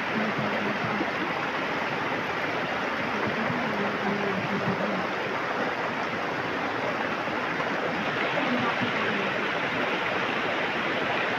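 Steady rushing of a rocky river or stream flowing over stones.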